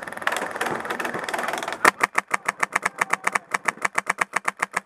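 Airsoft rifle firing full-auto in a rapid, even stream of about ten shots a second, starting about two seconds in after a few scattered shots.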